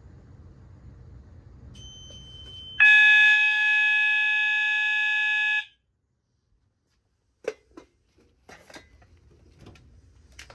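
A fire alarm horn sounds one loud steady electronic tone for about three seconds and cuts off abruptly, the brief activation of a fire alarm system in walk test. A short high beep comes just before it, and a few clicks and knocks of handling follow.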